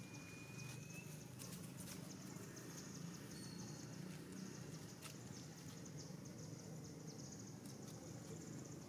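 Faint outdoor background ambience: a steady high drone and a low rumble, with a few light clicks and a thin, slightly rising whistle lasting about a second near the start.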